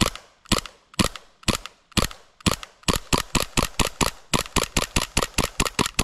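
SSP18 gas blowback airsoft pistol firing semi-auto shot after shot at an airsoft mask. The shots come about twice a second at first and quicken to about four a second about halfway through.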